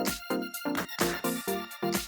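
Electronic background music with a steady beat, about two beats a second, and short repeated chord notes.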